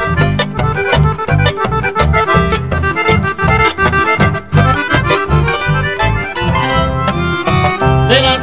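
Instrumental folk music on piano accordion, harp and acoustic guitars, the accordion carrying the melody over a steady, even beat.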